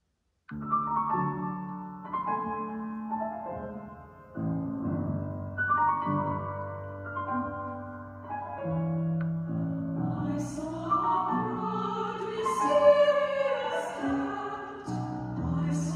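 Classical-style piano music that starts suddenly about half a second in, joined around ten seconds in by an operatic singing voice with vibrato.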